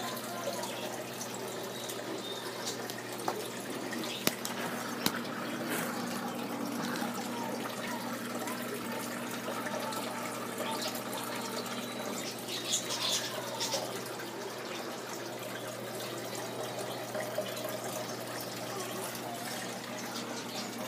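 Aquarium water trickling and splashing, as from a filter outflow, over a steady low hum, with a few light knocks.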